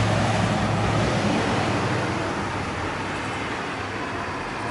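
Street traffic noise: a road vehicle's steady rumble and tyre hiss, with a low hum that dies away about halfway through as the sound slowly fades.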